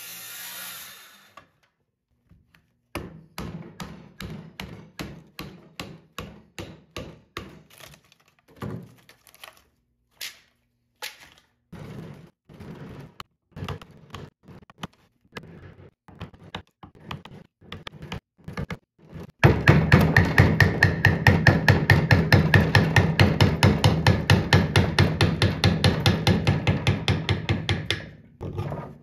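An electric saw cutting wood stops about a second in. Then a steel hammer strikes a wood chisel, chopping out the waste between saw kerfs in a board: irregular blows at first, then about two-thirds through a louder, fast, even run of blows, several a second.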